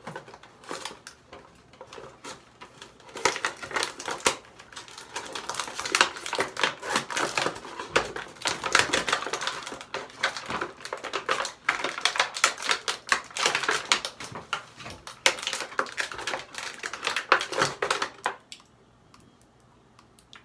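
Dense, rapid crackling and clicking of perfume packaging being handled and opened by hand, starting about three seconds in and stopping shortly before the end.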